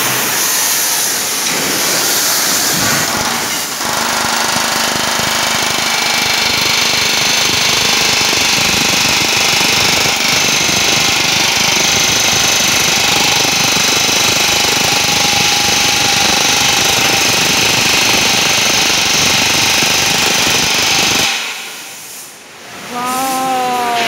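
Pneumatic riveting hammer rattling rapidly and without a break against a steel wagon bogie frame, driving rivets for a riveted joint; it stops shortly before the end.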